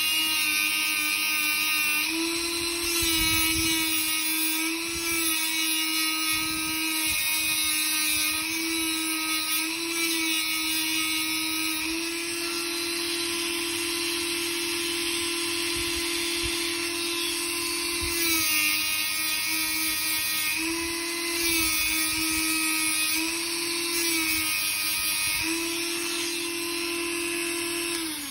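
Handheld rotary tool with a small abrasive wheel grinding rust marks off a straight razor's steel blade: a steady high motor whine whose pitch shifts slightly up and down every few seconds. It drops away at the very end as the tool stops.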